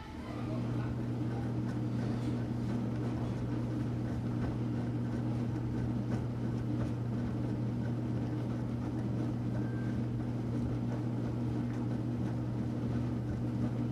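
Enxuta Luxo Soft washing machine running, a steady electric-motor hum over a rougher churning noise.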